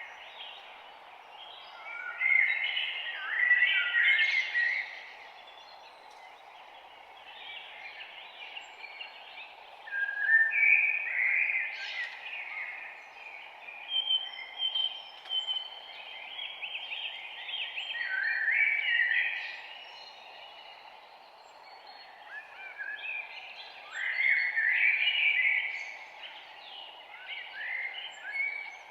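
Songbirds singing in a forest: bursts of chirps and trills every few seconds, some overlapping, over a steady low background hiss.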